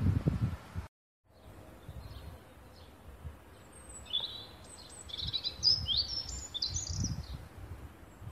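A songbird sings a quick run of high chirps and trills for about three seconds, starting about four seconds in. Under it is a low rumble of wind and handling on a phone microphone, and the sound drops out briefly about a second in.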